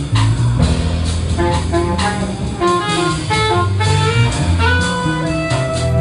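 Jazz-style instrumental music with a walking bass, drums and a horn melody of held notes.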